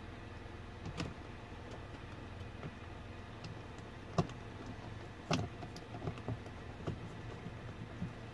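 Hex screws being driven back in with a hex key: scattered small clicks and knocks of metal on plastic trim, over a steady low hum.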